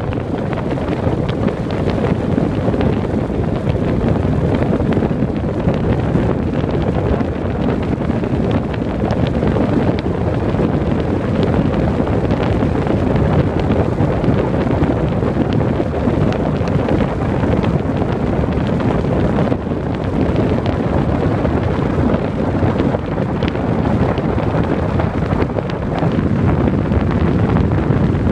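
Steady wind noise buffeting the microphone aboard a ferry under way, over the ferry's running noise and the rush of water.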